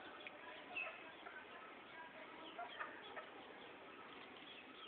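Chickens clucking faintly in a few short, scattered calls, the loudest about a second in.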